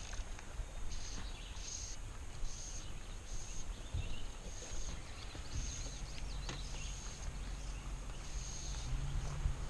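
Outdoor ambience on a river: a short, high, buzzy call repeating about once a second over a low steady rumble.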